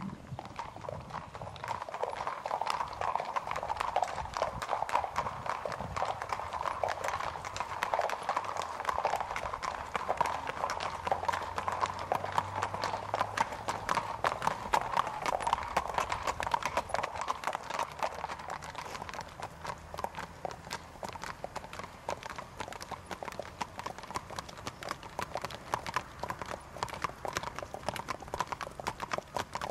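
Hooves of several horses on the move: a dense, irregular run of hoofbeats.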